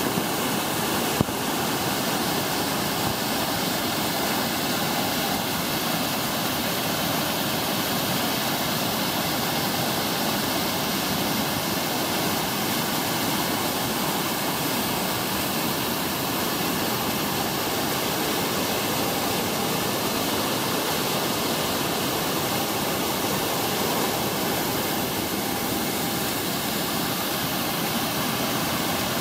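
Waterfall pouring over a rock ledge into a pool, a steady rushing of falling water. A single short click about a second in.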